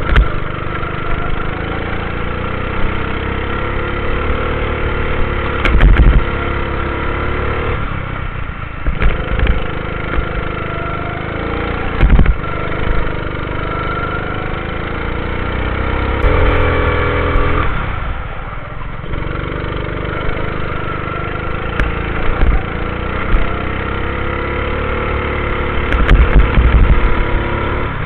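Go-kart engine running at racing speed, heard from on board the kart: its pitch climbs as the throttle is opened and drops back twice as the driver lifts off. A few loud thumps come through along the way.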